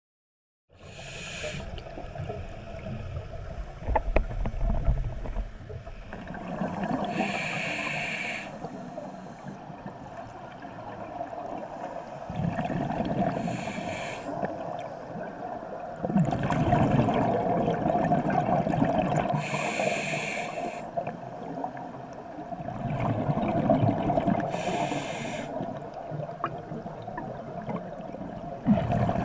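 Scuba diver breathing through a regulator underwater: a short hiss of inhalation about every five to six seconds, alternating with bubbling bursts of exhaled air. A steady hum runs underneath.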